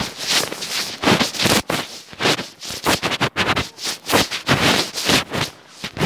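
Footsteps crunching in packed snow close to the microphone, about two steps a second at a walking pace.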